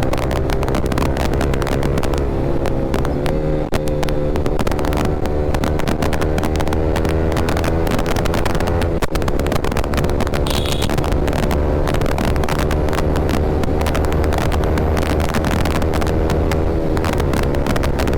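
Yamaha R15 V3's single-cylinder engine through an Akrapovic R9 aftermarket exhaust, running steadily at high revs at highway speed, with wind rushing on the microphone. The revs dip briefly about four seconds in and again about nine seconds in.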